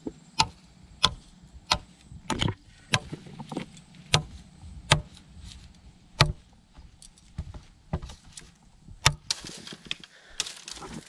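A run of sharp, single knocks, roughly one every half second to second, with a short pause in the middle, followed near the end by a couple of seconds of denser rustling and clattering.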